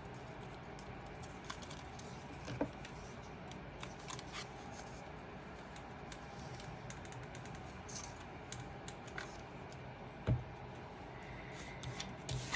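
Cardstock being handled and pressed into place: soft paper rustles and small scattered clicks over a faint steady hum, with a single knock about ten seconds in.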